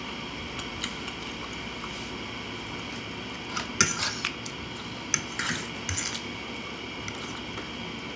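Metal fork scraping and clinking against a ceramic plate while gathering and twirling spaghetti, in two short bursts about three and a half and five seconds in, with a few lighter clicks, over a steady background hiss.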